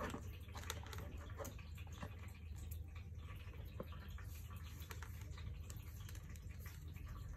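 Faint scattered clicks and light taps from hands handling a digital multimeter and its test leads against a lithium battery pack, over a steady low hum.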